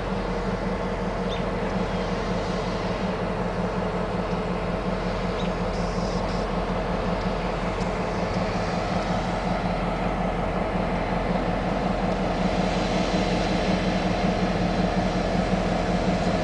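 Norfolk Southern GP38 diesel-electric locomotive's EMD 16-cylinder two-stroke engine running with a steady low drone as it pulls intermodal cars slowly through the yard. It grows gradually louder as it approaches, with more hiss from the wheels and cars in the later seconds.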